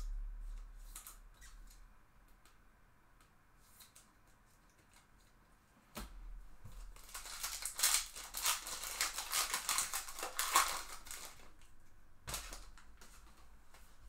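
Foil wrapper of a 2023 Bowman baseball card pack crinkling and tearing as it is ripped open, a dense crackle lasting about four seconds in the middle. A few dull knocks come before and after it: one at the start, one just before the tearing and one after.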